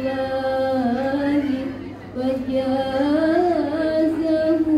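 A group of women singing an Arabic sholawat in unison, with long held notes that bend up and down and a short breath about two seconds in.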